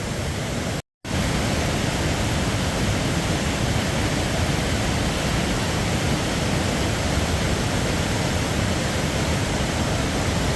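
Raging river rushing past, a steady, even wash of water noise, broken by a split-second gap just under a second in.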